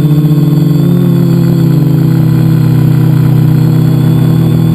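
Electric motors and propellers of a multicopter in flight, heard from a camera mounted on the craft: a loud, steady buzzing hum, its pitch shifting slightly as the motors adjust thrust.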